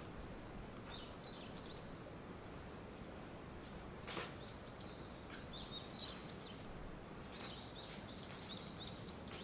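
Small birds chirping in short high notes, in a few brief clusters, over a steady outdoor background hiss. A single sharp click comes about four seconds in.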